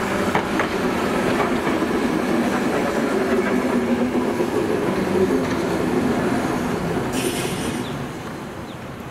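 Hankai Tramway Mo161, a late-1920s-built streetcar, running past with the growl of its nose-suspended traction motors and its wheels on the rails; the sound fades away over the last two seconds.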